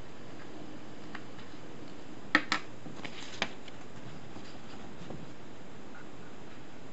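A few short, sharp clicks and taps, two close together about two and a half seconds in and one more a second later, over a steady background hiss.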